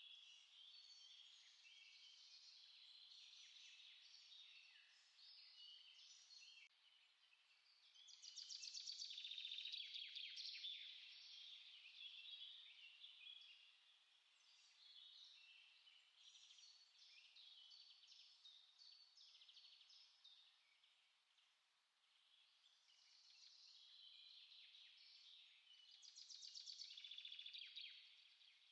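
Small songbirds singing, with many quick overlapping chirps. There are two louder rapid trills, one about eight seconds in and one near the end.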